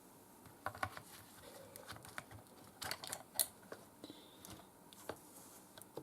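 Scattered light clicks and taps of a hard drive in its caddy being fitted back into the case of a 2008 MacBook Pro, with a few louder knocks about a second in and around three seconds in.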